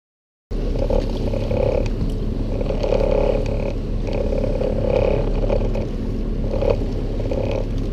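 Boat motor running steadily with wind and water noise, coming in suddenly half a second in, with a louder surge about every second or two.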